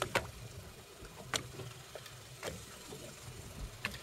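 A spinning reel is cranked as a hooked fish is brought in on a jigging rod, giving sharp clicks about once a second over a low boat rumble.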